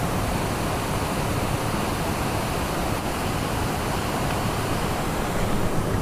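Waterfall rushing steadily: an even, unbroken noise of falling water.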